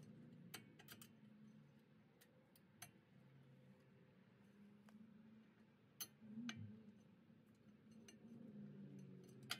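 Near silence broken by a few faint, irregular metallic clicks as a rear brake pad is worked into the caliper bracket's pad clips; the sharpest click is about six seconds in.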